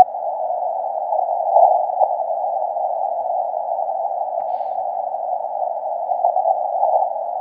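Ten Tec Eagle transceiver's receiver hissing with 40-metre band noise squeezed through its narrow CW filter, so the static sits in a thin band of pitch; no Morse signal is in it, only a couple of brief static crackles about a second and a half and two seconds in.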